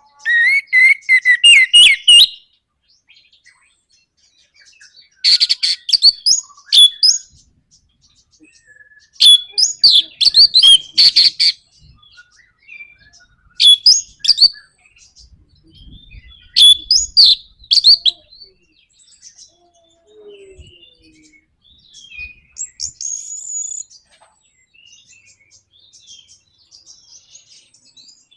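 Orange-headed thrush (anis merah) singing in the rapid chattering 'nraktak' style, in about five loud bursts of a second or two each, separated by short pauses. Fainter scattered calls follow in the last third.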